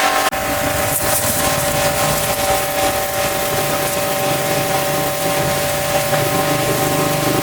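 Pressure washer running and spraying: a steady motor whine under the hiss of the water jet, with a brief break a moment in.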